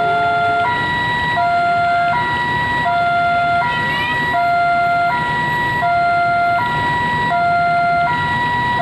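Railway level-crossing warning alarm sounding a steady two-tone 'ding-dong', a lower and a higher tone taking turns about every three-quarters of a second, signalling that a train is approaching the crossing.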